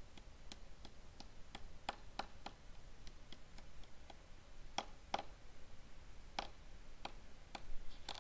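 Faint, unevenly spaced small clicks and ticks, roughly two a second, over low room hiss, with a pair of slightly louder clicks near the middle.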